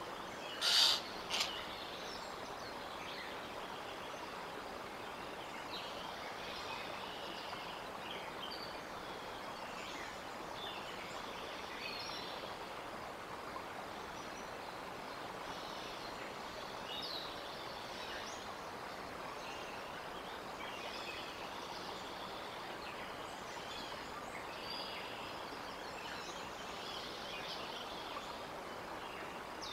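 Small birds chirping now and then over a steady outdoor hiss. Two short, loud sounds come about a second in, one just after the other.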